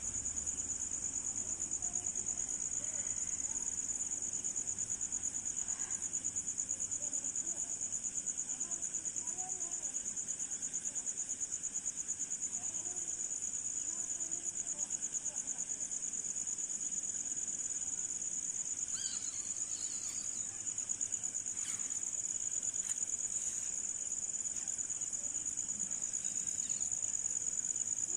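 A continuous, high-pitched insect trill, pulsing rapidly and evenly, with a few faint short chirps about two-thirds of the way through.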